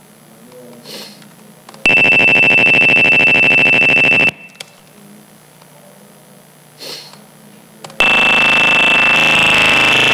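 Synthetic sound generated from images by the SoundFumble GIMP plug-in: two loud, harsh buzzes, each with a steady high whistle on top. The first lasts about two and a half seconds, starting about two seconds in; the second starts about eight seconds in, has a coarser, stepwise texture and runs on past the end.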